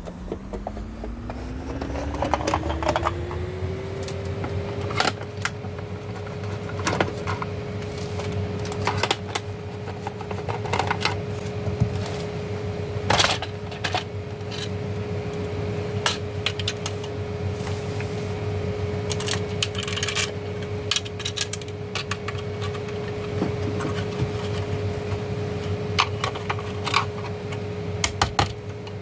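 Irregular clicks, taps and small rattles of a plastic emergency light being taken apart by hand to get at its battery. Under them a steady hum rises in pitch over the first few seconds and then holds.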